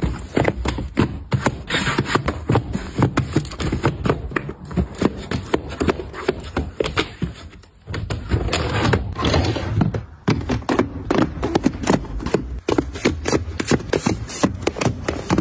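Cardboard product boxes being set and packed tightly into a drawer one after another, with rapid taps, knocks and scrapes of box against box and against the drawer. A drawer slides on its runners about two-thirds of the way through.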